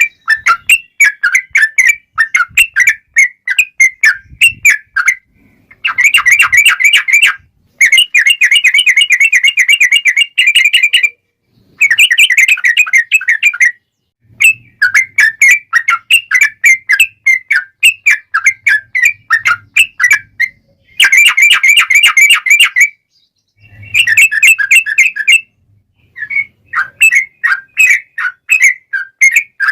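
Yellow-vented bulbul (trucukan) singing loudly in bubbly chattering phrases, broken several times by long, rapid rolling runs of notes with short pauses between them.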